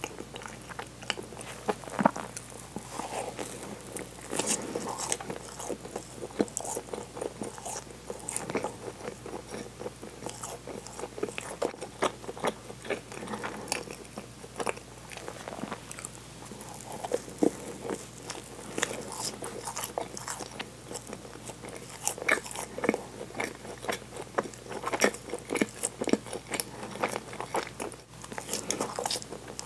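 Close-miked chewing of crusty bread: irregular crunches and small crackles of the baked crust between bites, with soft, wet mouth sounds.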